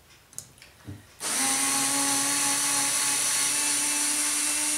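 RYOBI TEK4 cordless screwdriver motor starting about a second in and running at a steady pitch as it drives a screw into a wooden 2x4 block. A couple of light clicks come just before it starts.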